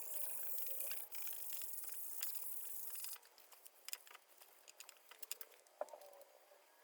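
A small high-speed power tool whirring with a thin hiss, which cuts off about three seconds in; scattered light clicks and taps of handling tools and parts follow.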